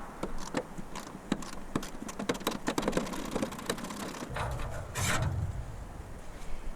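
Hand-tool work on a truck: a run of sharp clicks and knocks, with a louder scraping rush about four and a half seconds in.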